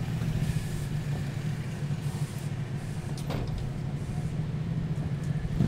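A steady low engine hum, like a large vehicle idling, with one brief knock about three and a half seconds in.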